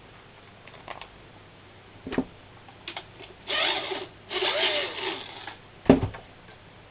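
Tools being handled at a workbench vise: a knock about two seconds in, two spells of scraping and rubbing in the middle, and a sharp knock near the end.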